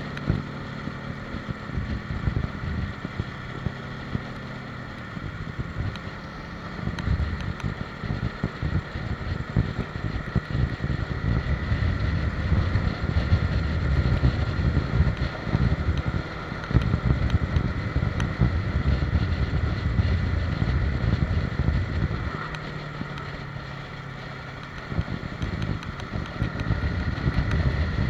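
Motorcycle engine running while riding, with wind noise on the microphone; the engine swells and eases as the throttle opens and closes, louder from about eight seconds in and quieter again for a few seconds near the end.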